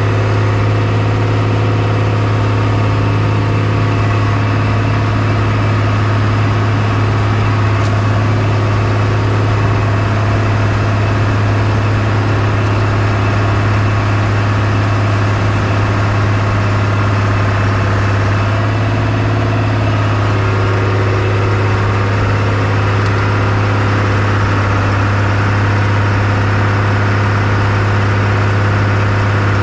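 A Bombardier BR-160 snowcat's engine running at a steady speed while the machine pushes snow with its front blade. It makes a constant low drone that does not change much.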